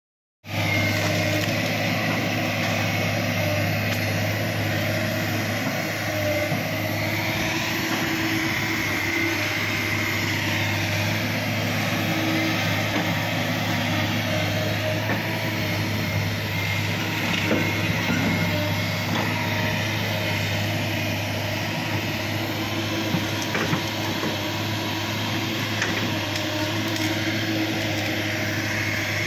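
Tracked excavator's diesel engine running steadily as it clears forest ground. A constant low drone carries some wavering higher tones over it.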